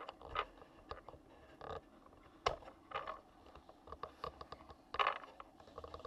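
Handling noise from a camera being picked up and moved around a workbench: scattered light knocks, scrapes and rustles, with one sharp click about two and a half seconds in.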